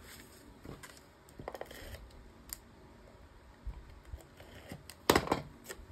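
Paper and card being handled and pressed into place: scattered light taps and paper rustles, with a louder short crinkle of paper about five seconds in.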